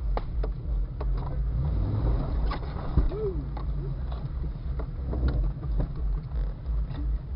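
A 1999 Jeep Cherokee XJ's engine running low as it creeps over rough ground on a tight trail, heard from inside the cabin, with scattered clicks and knocks from the body and brush and a loud knock about three seconds in.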